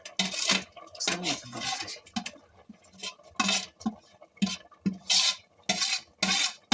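A spoon stirring and scraping around a cooking pot, in repeated short strokes about two a second.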